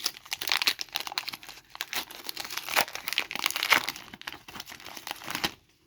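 Crinkling plastic packaging from a trading card pack, handled in the hands: a dense run of crackles that stops about half a second before the end.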